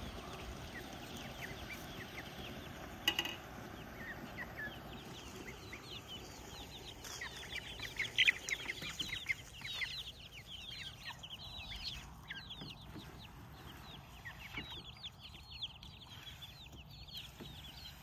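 Young chicks peeping: many short, high chirps overlapping, thickest in the middle and again near the end. A single sharp knock about three seconds in.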